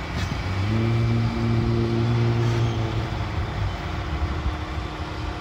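John Deere motor grader's diesel engine running under load as it grades dirt: a steady drone, with a stronger pitched hum that comes in about a second in and fades out after about three seconds.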